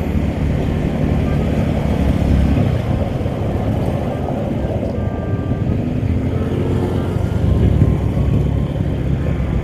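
Motorcycle engine running steadily while riding, with wind noise on the helmet-camera microphone.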